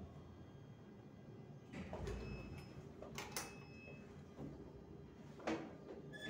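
A few faint knocks and scrapes, about two, three and five and a half seconds in, from someone climbing about on top of a lift car in its shaft, among the car-top fittings.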